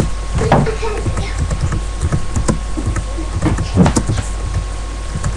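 Scattered knocks and bumps over a steady electrical hum, with faint voices.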